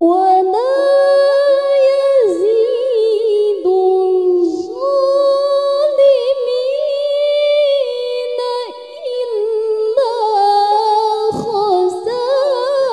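A young woman reciting the Qur'an in melodic tilawah style into a microphone. She holds long, ornamented high notes, with a short break for breath about nine seconds in.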